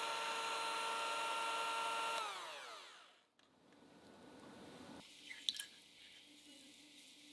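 Philips electric hand mixer whisking eggs and sugar, running at a steady whine, then switched off about two seconds in, its pitch falling as the beaters spin down. A short clink of glass follows about five seconds in.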